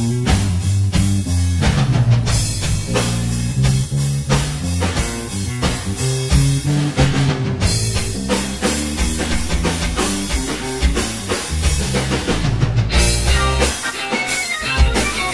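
Background rock music with guitar, bass and drums.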